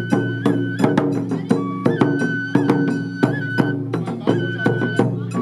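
Japanese festival hayashi played by children: bamboo transverse flutes carry a high, held melody that steps between notes, over a taiko drum struck in a steady rhythm.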